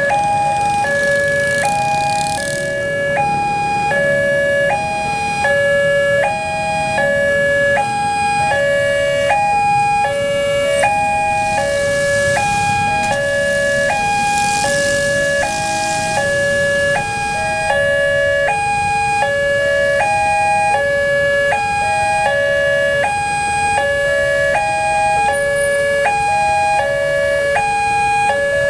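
Indonesian railway level-crossing electronic alarm sounding a repeating pattern of a few stepped tones, cycling about once a second, with a faulty tempo ('alarm tempo rusak'). Road traffic noise swells beneath it in the first couple of seconds and again about 11 to 17 seconds in.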